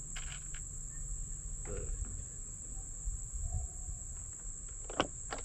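Steady high-pitched drone of insects in summer vegetation, with a few sharp clicks near the end.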